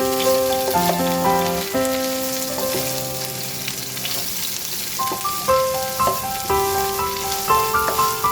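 Food sizzling and crackling as it fries in a hot pan, under background music of gentle sustained melodic notes that thin out briefly midway.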